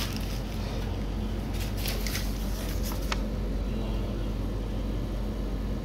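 Steady low hum, like a motor or machine running, with a few brief rustles of a paper bill being handled between about one and a half and three seconds in.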